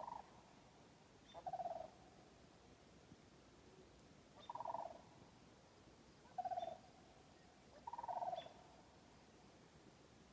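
Sandhill cranes calling: about five faint, rolling, rattling calls a second or two apart, some with a higher and a lower call sounding together.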